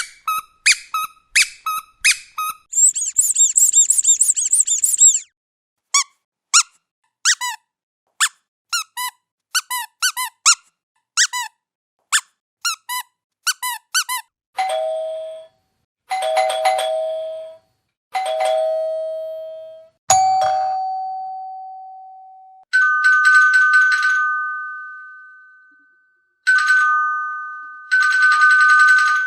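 Short, high squeaks in quick succession for about the first half, with a dense flurry of them a few seconds in. Then come doorbell ding-dong chimes: three two-note falling chimes, a single ring, then a higher two-note electronic doorbell ringing twice, each ring dying away slowly.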